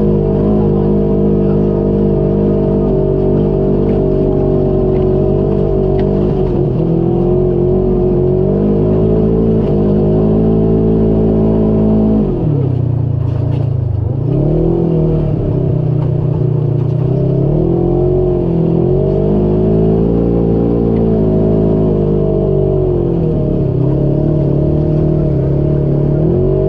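Polaris RZR XP4 side-by-side engine running at high revs under load, dropping off sharply about halfway through and climbing back up, then rising and falling a few more times near the end.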